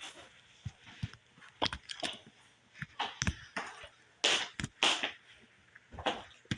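Plastic Lego bricks being handled: scattered clicks and short rattling scrapes, busiest about three to five seconds in.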